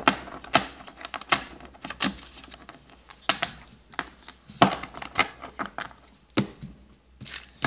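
Battle Spirits trading cards being flipped one after another in the hands, their edges giving irregular sharp clicks and snaps. Near the end a foil booster pack starts to crinkle.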